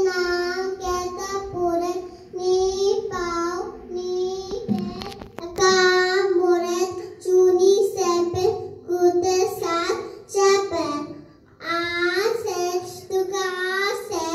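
Children singing kirtan, Sikh devotional hymns, in phrases of a second or two with short breaks, over a steady held harmonium note.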